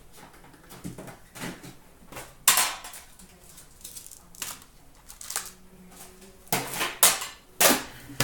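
Metal Upper Deck hockey card tin being opened and handled: a series of clanks and clicks as the lid comes off and is set down on a glass counter. The sharpest clank comes about two and a half seconds in, and several more come close together near the end.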